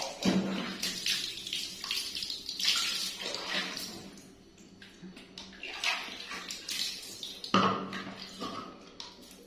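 Water splashing and dripping onto a tiled floor as a wet baby monkey is scrubbed by hand, in irregular splashes with short pauses.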